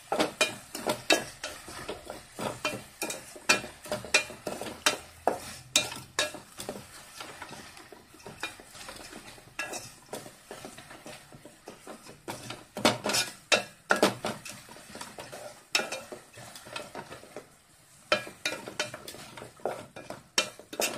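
Wooden spatula stirring rice flakes in hot jaggery syrup in an aluminium pot, scraping and knocking against the pot in quick, irregular strokes over a light sizzle, with a short pause about three-quarters of the way through. This is the stage where the flakes cook in the syrup until they soften and the syrup reduces.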